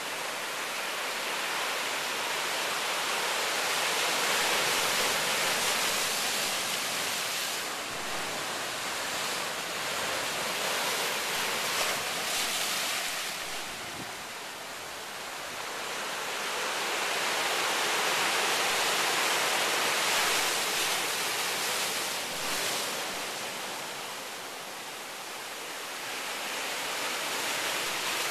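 Ocean surf churning against a rocky lava shore: a steady rush of whitewater that swells and eases slowly, loudest twice.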